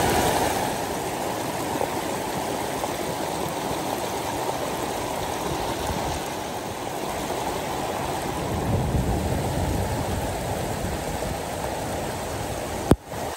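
Stream water running with a steady rush. A sharp click near the end, where the sound briefly drops out.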